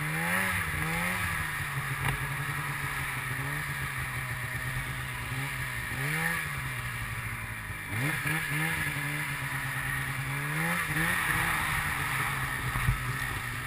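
Polaris snowmobile engine running under way, its note holding steady and rising briefly with the throttle several times, most noticeably about six, eight and eleven seconds in, over a constant hiss of wind and track noise.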